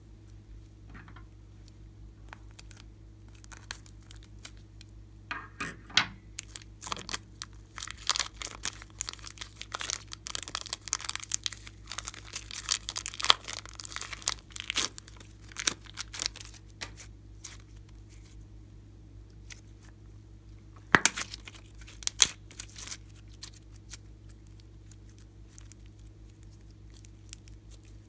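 Plastic piping bag crinkling and tearing as thick green slime is squeezed and pulled out of it by hand, with the slime's sticky crackling. The crackles come in dense runs through the middle, then in a short flurry later.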